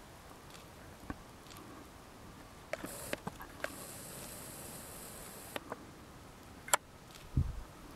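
Quiet open-air ambience with scattered faint clicks and rustles; in the middle a camcorder's zoom motor whines faintly for about two seconds as the lens zooms in, and a low bump of handling or wind comes near the end.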